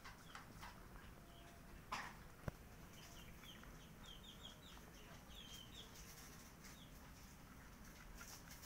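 A cat crunching dry kibble from a steel bowl, faint and irregular, with a short thump just before two seconds and a sharp click about half a second later. A run of faint, quick high chirps comes in the background between about three and six seconds in.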